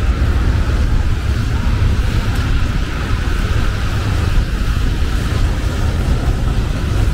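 Steady low rumble of a passenger ferry's engine underway, with wind blowing on the microphone.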